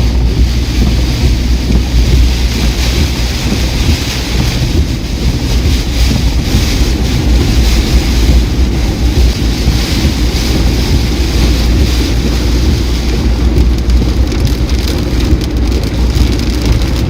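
Heavy rain pelting a car being driven through a thunderstorm: a dense, steady rush of rain with a continuous low rumble of the moving car underneath.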